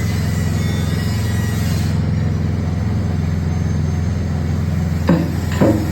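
Honda small petrol engine running steadily, driving a coconut milk press machine. A few brief sharp sounds come near the end.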